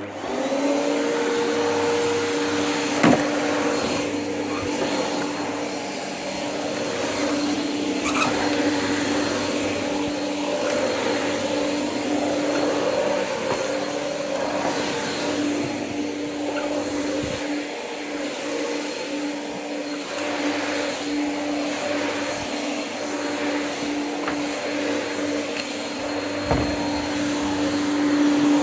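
Corded vacuum cleaner switched on and then running steadily, its motor hum wavering a little, with a few knocks along the way.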